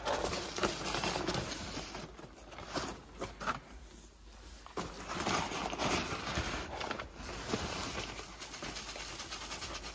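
Dry horse feed being scooped and poured into a feed bucket: a rustling, hissing pour in a few stretches with short pauses between.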